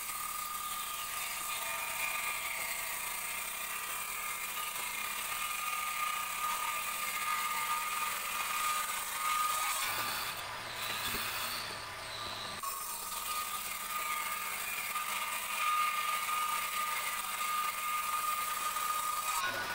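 Bench-mounted circular table saw ripping a teak board lengthwise: a steady high whine from the spinning blade under the hiss of the cut. The cut eases off briefly about halfway through as the board is shifted, then carries on.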